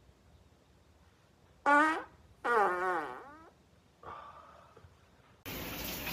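Two tonal farts: a short one, then a longer one that wavers and drops in pitch as it trails off. A steady hiss starts abruptly near the end.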